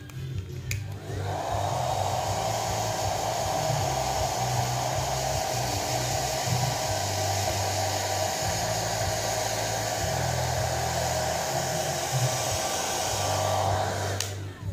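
Handheld hair dryer clicked on about a second in, rising quickly to a steady whine with rushing air as it blows a cat's fur dry, then clicked off near the end.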